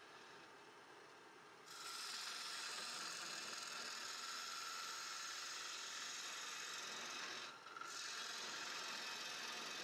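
Gouge cutting into a spinning she-oak bowl blank on a wood lathe: a steady hissing scrape of shavings coming off the wood starts about two seconds in, breaks off briefly near the end and starts again. Underneath it runs the lathe's motor hum.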